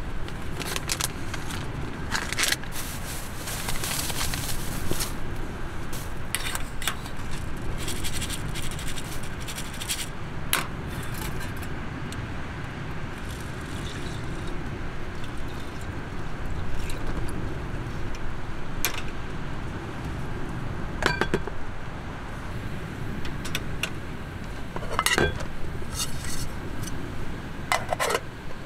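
Dry rice poured from a plastic bag into an aluminium mestin mess tin with a rattling hiss, then water poured in from a cup and the lid set on near the end, with metal clinks and scrapes along the way. A steady low rumble of wind on the microphone runs underneath.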